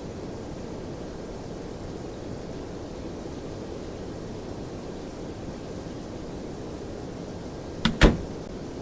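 Steady rushing of air from a running fan. About eight seconds in come two sharp clicks in quick succession, the second louder.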